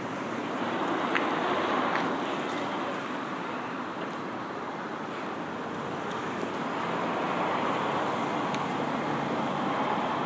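Road traffic noise: cars passing on a city street, a steady hiss of engines and tyres that swells about a second in and again in the second half.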